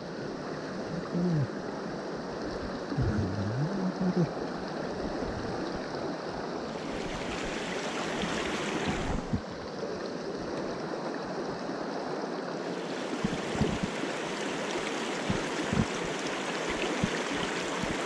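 Shallow mountain stream running over cobbles and small rapids: a steady rush of water, with a few faint knocks toward the end.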